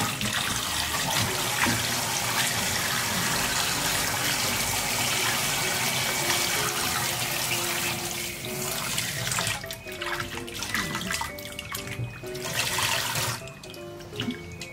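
Tap water running into a bowl in a stainless-steel sink while hands rub and swish pieces of pork liver, washing the flour coating off. The steady rush turns uneven after about eight seconds and mostly fades near the end.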